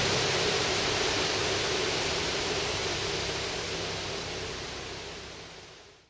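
White water rushing out beneath the gates of a river dam's spillway: a steady, even rush that fades out over the last second or so.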